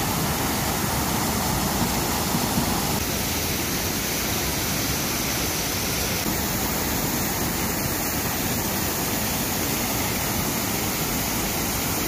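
Waterfall pouring down a rock face into a pool: a steady rush of falling water.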